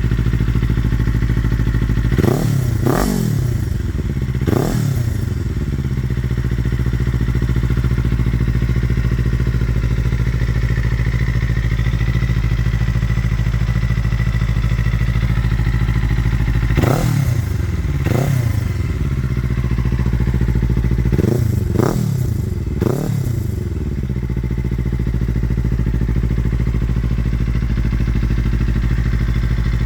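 Kawasaki KLE 500 motorcycle engine idling steadily through a Graves slip-on muffler with no dB-killer, blipped several times: a few quick revs between two and five seconds in, two more around seventeen seconds, and three in quick succession around twenty-two seconds, each rising sharply and dropping back to idle.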